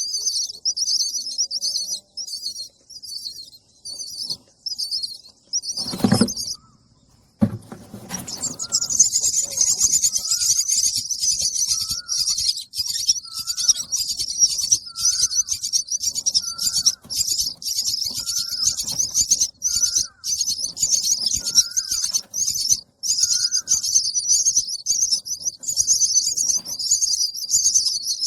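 Baby birds begging for food with high-pitched chirps, at first about two a second. A thump and a brief pause come about six seconds in, and then the chirping turns into a continuous, frantic chorus. A lower call repeats about once a second through the middle.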